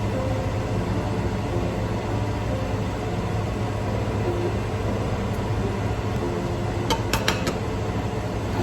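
Steady hum of a fan running, with a quick run of four or five light clicks about seven seconds in.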